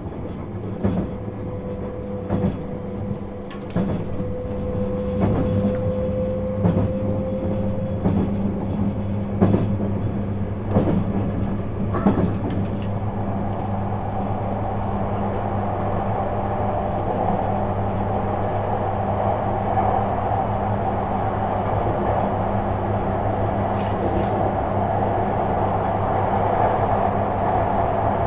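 Interior running sound of a JR 651 series electric train: wheels click over rail joints about every second and a half, then the clicks stop about halfway through and only a steady rolling rumble remains.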